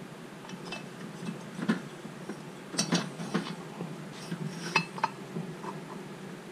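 Several sharp metal clinks and knocks, some with a short ring, as a Stihl MS660 chainsaw cylinder is handled and set against a billet aluminium crankcase.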